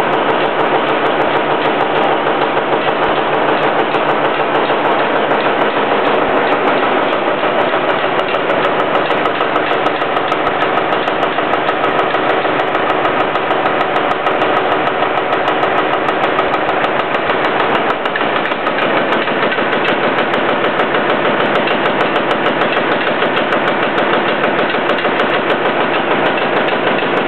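John Deere 830's two-cylinder diesel engine idling, with a steady, rapid beat of firing pulses.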